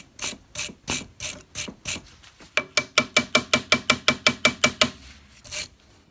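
Sharp metallic clicks in an even series, about three a second at first, then a faster run of about six a second through the middle, each with a faint ring, like a ratchet mechanism being worked.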